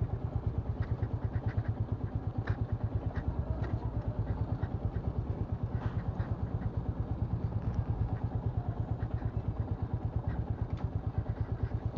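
Royal Enfield Meteor 350's single-cylinder engine running steadily at low revs, giving an even thump of about seven to eight beats a second. There are a few faint ticks over it.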